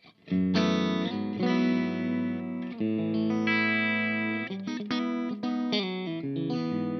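Fender Aerodyne Special HSS Stratocaster electric guitar played through a Ceriatone OTS Mini 20 amp set clean: a run of strummed chords, each left to ring, changing about once a second.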